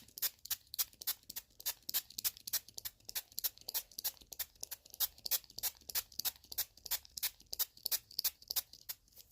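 Hand-pumped spray bottle squirting water in quick, even strokes, about four or five a second, onto cotton stuffing.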